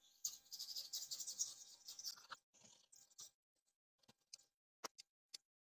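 Faint scrubbing and rubbing along the foam-covered rubber edge of a car's rear window glass, irregular and scratchy, for about two seconds, then a few scattered light ticks.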